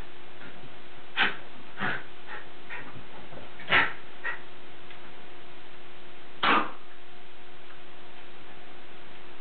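Two Lakeland Terriers playing together, with a handful of short sharp sounds from them, the loudest about four and six and a half seconds in, over a steady faint hum.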